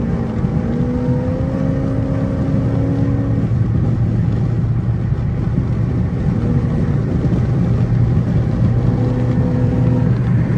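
Car cabin at highway speed: a steady low engine drone and tyre and road noise. A higher hum rises slightly about half a second in, holds for a few seconds, drops out, and comes back briefly twice.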